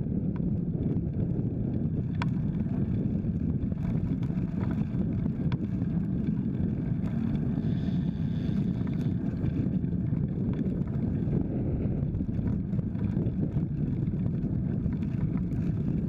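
Steady low rumble of wind on the microphone of a bicycle-mounted camera while riding along a road, with a few faint clicks.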